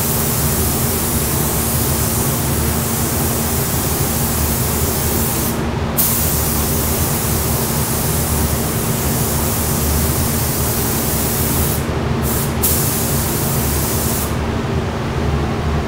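Gravity-feed spray gun hissing steadily as it lays clear coat onto a car door, the trigger let off briefly about six seconds in and twice around twelve seconds between passes, and the spray stopping about a second and a half before the end. A steady low hum runs underneath.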